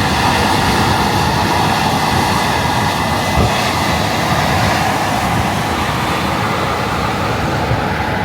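Combine harvester running steadily while cutting wheat: a continuous mechanical drone with a faint high whine.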